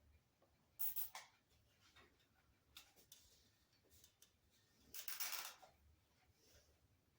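Faint hands-on work with plastic zip ties and the LED tube on a trike frame: two short scratchy rasps, one about a second in and a longer one around five seconds in, amid near silence.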